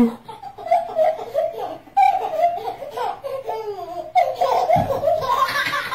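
A baby laughing in repeated short bursts.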